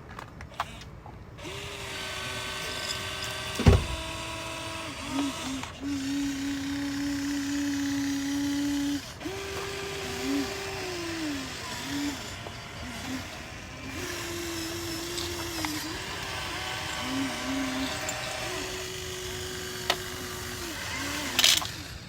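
Electric motors of a Huina 1594 RC excavator whining in repeated bursts of one to three seconds as its functions are worked, each burst sliding down in pitch as the motor stops. One sharp, loud knock about four seconds in.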